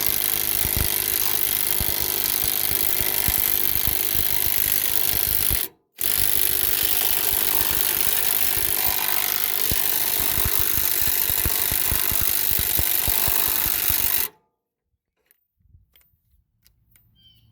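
Ryobi P235 brushed impact driver hammering rapidly on a 15/16 socket, turning a vehicle jack's screw under load to raise an SUV. It stops for a moment about six seconds in, runs again, and cuts off about fourteen seconds in.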